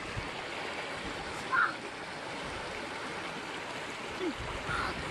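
Steady rushing of flowing stream water, with a brief, sharper sound about a second and a half in.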